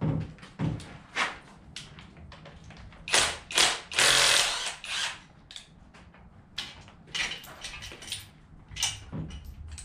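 Hand tools knocking and clinking against engine parts during an engine teardown: irregular sharp clicks and knocks, with a longer, louder noisy stretch about three to five seconds in.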